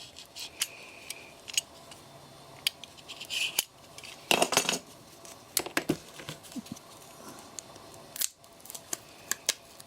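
Scattered clicks and short scrapes of hand-work as the outer casing is taken off an 18650 lithium-ion battery pack, with a louder rasping scrape about four and a half seconds in.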